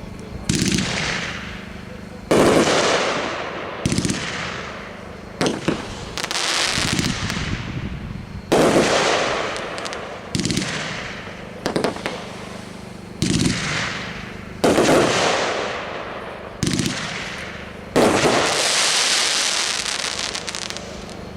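A Fat Lady consumer fireworks cake by Winda firing its shots: about a dozen sharp, loud reports spaced a second or two apart, each followed by a fading crackling hiss.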